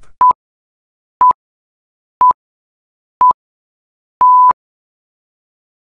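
Workout interval timer counting down: four short electronic beeps one second apart, then one longer beep at the same pitch, marking the end of the rest and the start of the next exercise.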